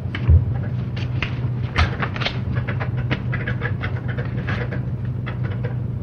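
Paper rustling and page turning with light knocks and two low thumps, over a steady electrical hum on an old tape recording, as a code book is searched for a section.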